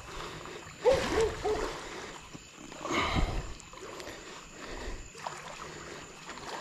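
Water splashing as a hooked alligator gar thrashes at the water's edge while it is drawn in to a boat ramp. A short voice-like sound about a second in is the loudest moment, and a heavier splash comes about three seconds in.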